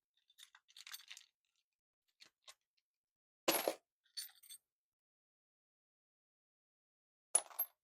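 Loose metal sockets and wrenches clinking and clattering as they are dropped into a metal toolbox, in several separate bursts. The loudest clatter comes about three and a half seconds in and another near the end.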